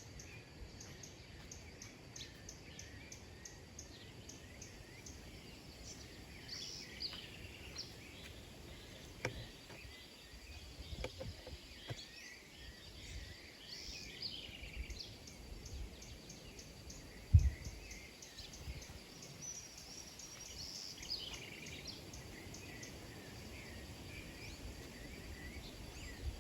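Several small birds chirping and twittering on and off, over a steady high-pitched buzz. A sharp low thump comes about 17 seconds in.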